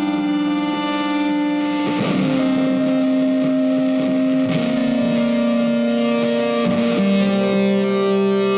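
Background music with held chords that change about every two and a half seconds.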